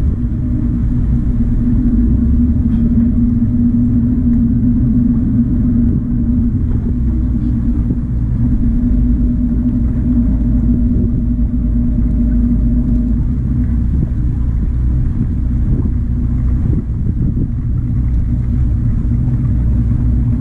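A fishing boat's engine running steadily, heard from on board: a low, even rumble with a steady hum.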